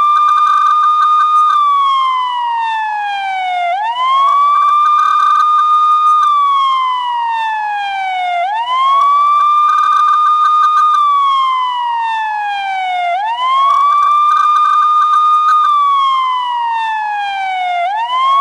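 Police-style wailing siren: each cycle rises quickly, holds a high note for about two seconds, then slides slowly down, repeating about four times.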